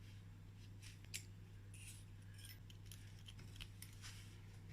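Faint, light clinks of small metal engine parts being handled, a few separate ticks over a low steady hum.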